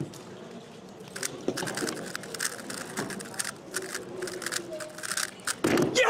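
Rapid clacking of a 3x3 speedcube's plastic layers being turned in a speed solve, then a sudden loud outburst of voices shouting near the end.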